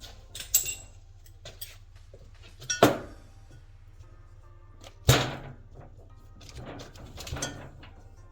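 Tools and parts knocking and clattering during cylinder head disassembly: three sharp knocks about two seconds apart, with lighter clicks and handling noise between.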